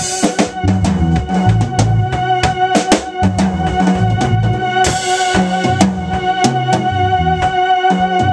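Live band jamming: drum kit with kick and snare keeping a steady beat, an electric bass line, and a keyboard holding a steady chord. A cymbal crash comes about five seconds in.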